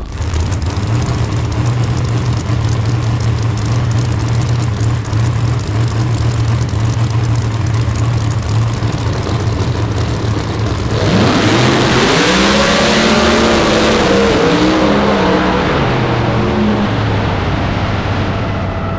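A drag-racing car's engine idling with a steady low drone. About eleven seconds in it gets louder and revs up and down several times for about five seconds, then settles back to idle.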